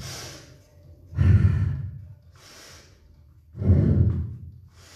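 A woman breathing hard in time with a crisscross abdominal exercise: two loud, forceful out-breaths about a second and three and a half seconds in, with a quieter, hissy in-breath between them.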